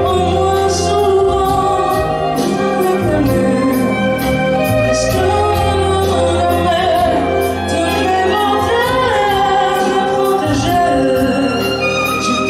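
A woman singing a slow song into a microphone, with amplified accompaniment of violin, held bass notes and light regular percussion ticks.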